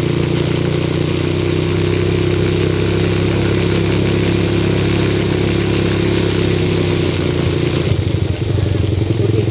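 ATV engine running at a steady, even speed, then easing off about eight seconds in, when its note drops and the separate firing pulses come through.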